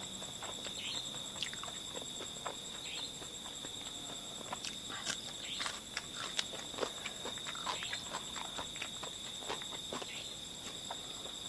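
Irregular close eating clicks from chewing and lip-smacking over a steady, high-pitched drone of night insects.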